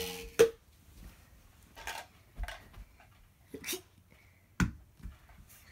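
Scattered light knocks and clatters of plastic toy kitchenware being picked up and handled. A sharp knock with a brief squeal opens it.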